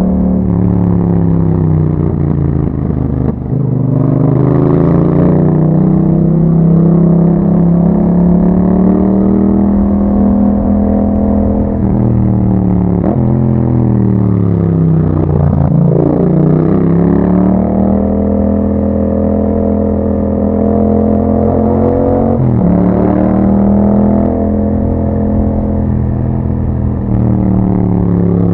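A 2021 Yamaha MT-07's 689 cc parallel-twin engine running under way through an Akrapovic exhaust with dB killers fitted. The engine note dips, falls to its lowest about halfway, then climbs again, with sudden steps in pitch at gear changes.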